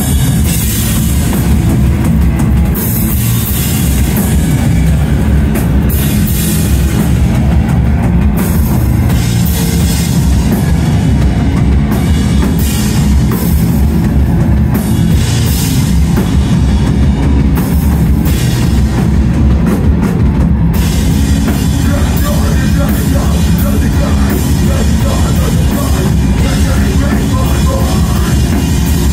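Live extreme metal band playing loud, in a blackened sludge-hardcore style: distorted guitars and bass over a pounding drum kit, with a heavy, dense low end throughout.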